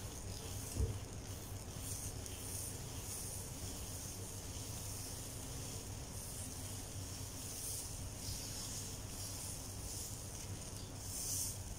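Pesarattu (green moong dal dosa) batter hissing faintly on a hot tawa as a steel ladle spreads it in circles, on a low flame. A steady low hum runs underneath, and there is one light knock about a second in.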